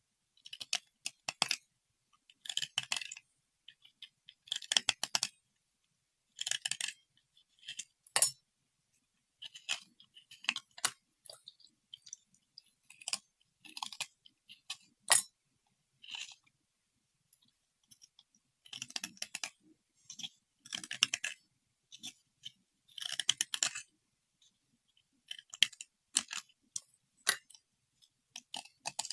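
Crisp crunching and clicking in short bouts of about half a second to a second, repeated many times with silent gaps between them.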